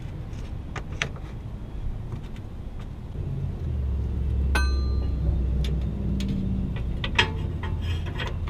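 Scattered metal clicks and clinks from a pry bar and hand tools against the car's steering rack and front crossmember, with one clear ringing metal clink about four and a half seconds in. A low steady rumble runs underneath from about three and a half seconds to eight.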